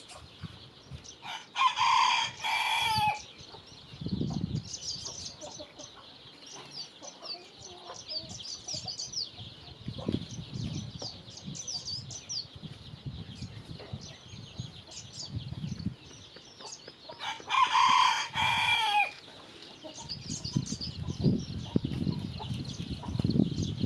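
A rooster crows twice, once about two seconds in and again near eighteen seconds in, each crow lasting about a second and a half. Small birds chirp throughout in the background.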